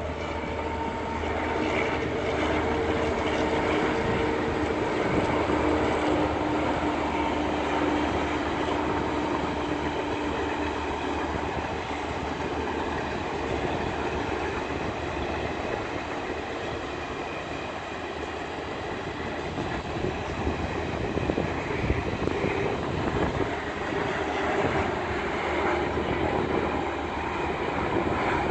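Rajdhani Express pulling out, with the steady drone and whine of its end-on-generation power car's diesel generator sets for the first third, then giving way to the rumble of the coaches rolling past, with scattered clicks of wheels over rail joints.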